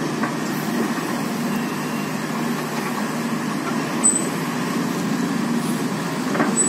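Large tracked excavator's diesel engine running steadily under load as it tows the stripped undercarriage of another excavator on a cable. A short high-pitched squeak about four seconds in.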